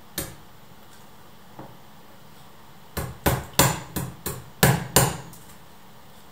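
Hammer blows on the top edge of a door: a single strike, a faint tap, then a quick run of about eight blows, roughly three a second.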